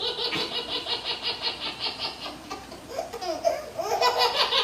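Recorded laughter sound effect, a laugh track of rapid, rhythmic giggling, played as the response to a joke's punchline.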